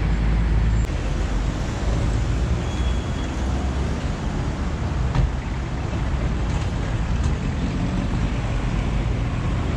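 Steady street traffic noise, a low rumble with no single vehicle standing out, and a brief click about five seconds in.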